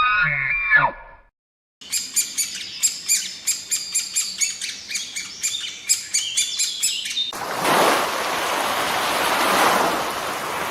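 A pitched animal call with gliding tones ends about a second in. After a short pause a bird chirps in a rapid run of short high notes, about four a second, for roughly five seconds. A steady rushing noise like surf or wind then takes over.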